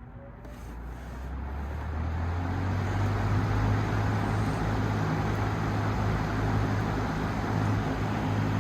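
Vintage Air King PL20P box fan with a Westinghouse motor and three metal blades switched on at high speed: a click, then the motor hum rises in pitch and the rush of air builds as the blades spin up over about two to three seconds, settling into a steady, loud whoosh.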